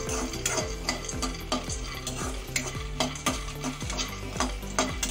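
Peanuts being roasted in a metal kadhai and stirred with a metal spoon: a steady run of quick rattles and scrapes as the nuts and spoon hit the pan.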